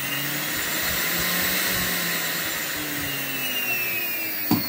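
DIY CNC router spindle motor running at high speed with a whine and airy hiss, its pitch falling over the last second or two as it spins down. A sharp click near the end.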